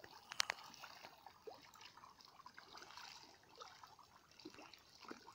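Faint splashing and dripping at a pond surface as fish rise to take feed scattered by hand, with one sharp click about half a second in.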